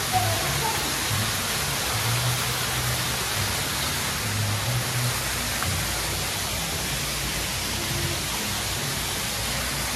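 Artificial rock waterfall pouring into a swimming pool: a steady rush of falling, splashing water.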